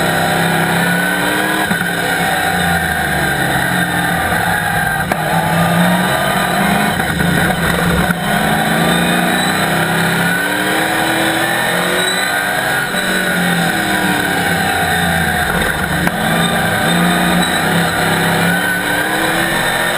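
Chevrolet Camaro Cup race car's ZZ4 V8 engine heard from inside the cockpit at racing speed. The revs climb and fall again and again through the lap.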